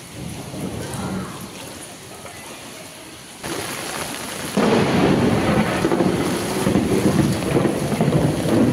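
Heavy rain falling with rumbling thunder. The sound steps up about three and a half seconds in and becomes much louder a second later, a dense low rumble that cuts off abruptly near the end.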